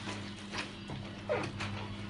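Wet, soapy clothes squelching and sloshing in a plastic basin as they are trodden underfoot, in short repeated strokes about twice a second, over a steady low hum.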